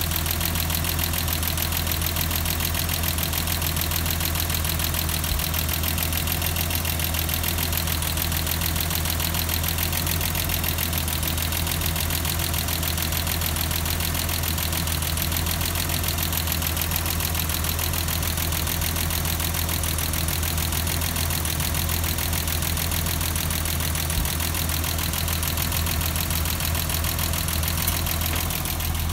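1989 BMW 325i's M20B25 2.5-litre inline-six engine running steadily at idle.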